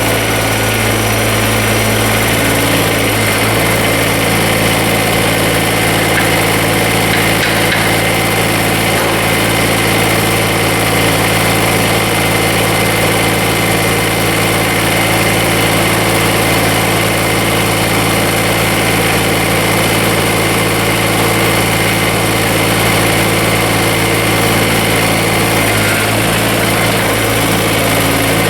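Kubota BX24 compact tractor's three-cylinder diesel engine running steadily.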